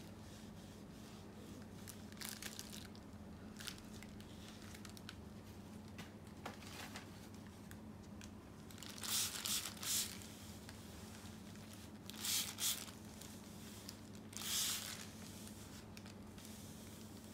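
Paper tissue wiped across freshly tattooed skin: short rustling swipes, a few at a time, most of them in the second half, over a faint steady low hum.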